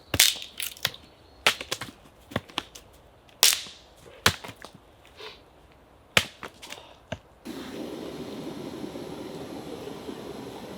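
A series of sharp, separate knocks and clacks, as of tools or wood being handled. About seven and a half seconds in, a steady power-tool motor starts running.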